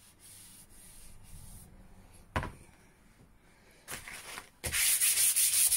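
Sandpaper rubbed by hand along a hickory axe handle, sanding between coats of oil to knock back the raised grain. The rubbing is faint at first, with a single knock a little before the middle. Near the end come loud, quick back-and-forth strokes, about four or five a second.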